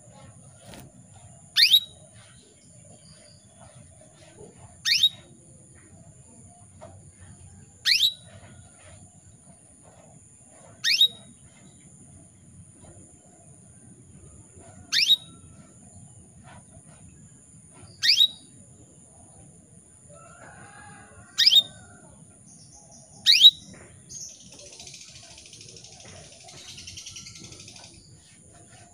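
Female canary giving a short, sharp single call, repeated eight times about every three seconds: the calling of a hen canary in breeding condition, used to lure a male into song. A faint steady high whine runs underneath, and there is a soft rustle after the last call.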